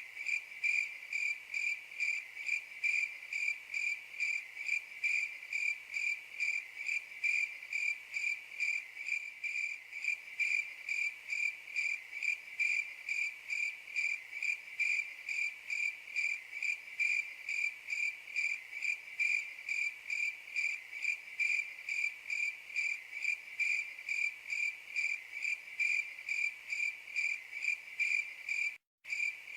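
Crickets chirping in a steady, even rhythm, about two to three chirps a second, with a brief gap in the sound near the end.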